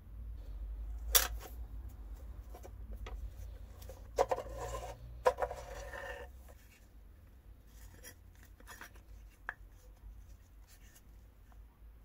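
An old rusty metal coffee grinder being handled: a sharp metallic clack about a second in, then rubbing and scraping of the grinder's metal body and parts for a couple of seconds, followed by scattered light clicks and taps as its wooden drawer is worked out.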